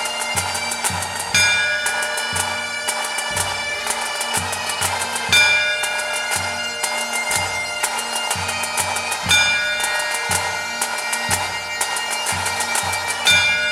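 Pipe band playing: Great Highland bagpipes sounding a melody over steady drones, with snare drums and a bass drum beating. There are louder accents about every four seconds.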